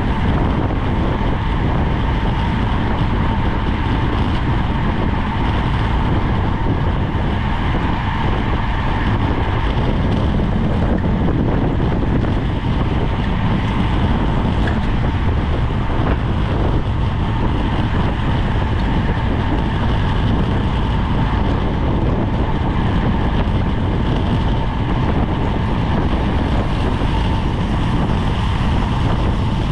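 Wind rushing over a GoPro's microphone on a bicycle racing at speed, a steady low roar with a faint steady whine on top.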